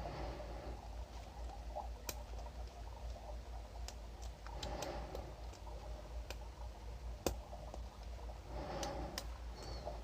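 Lock pick and tension wrench working the pin stack of a Paclock 200A padlock: scattered small metallic clicks and ticks as pins are lifted and set. The sharpest click comes about seven seconds in.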